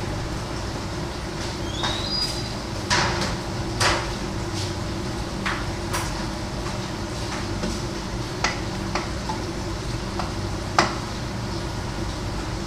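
Kitchen clatter: about a dozen sharp knocks and clinks of pots, pans and utensils, scattered and irregular, the loudest near the end, over a steady low hum.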